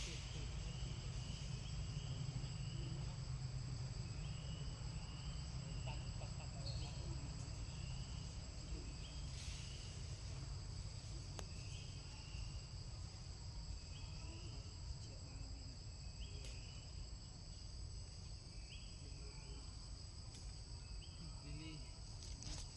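Insects droning steadily at a high pitch, with short chirps repeating every second or two over a low rumble.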